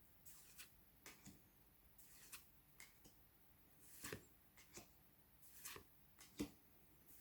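Faint, irregular swishes and light taps of Pokémon trading cards being slid and flipped through one at a time, about one every half second to second.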